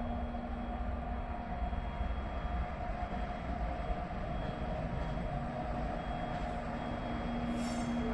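Electric locomotive running slowly along yard track, a steady low rumble with a constant hum, and a brief high-pitched squeal near the end.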